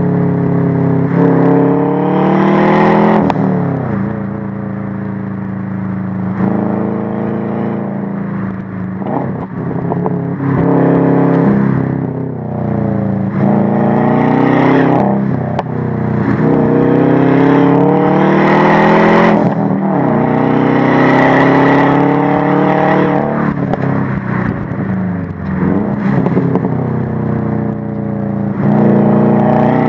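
2011 Subaru WRX's turbocharged 2.5-litre flat-four running through a Crawford Gymkhana aftermarket exhaust, revving up and falling back again and again as the car accelerates and lifts off through a run of bends.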